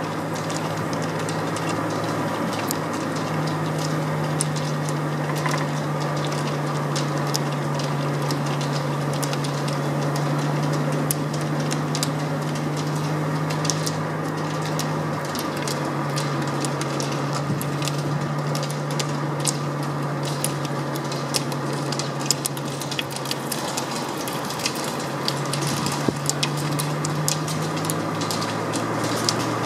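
A motor vehicle's engine running steadily at low revs, with a near-constant hum. Many sharp, irregular clicks from the skiers' pole tips striking the asphalt as a pack of roller skiers double-poles past.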